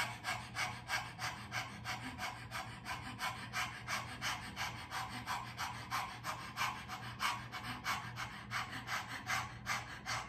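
A woman panting like a dog through an open mouth with her tongue out: quick, even in-and-out breaths, about four a second, done as a deliberate breathing exercise.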